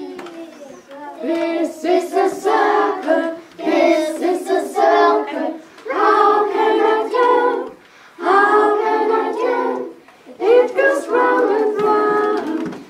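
A woman and a group of young children singing a simple song about shapes together, unaccompanied, in short phrases with brief pauses between them.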